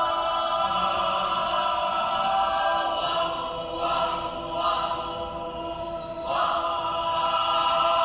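Mixed choir singing a cappella, holding sustained chords that swell and ease off, with a strong new chord coming in a little over six seconds in.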